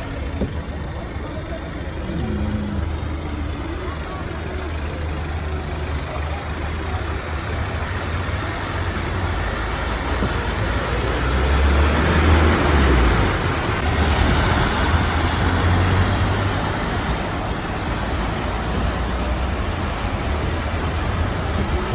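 Car engine running with a steady low hum under an even rushing noise, which swells loudest a little past the middle.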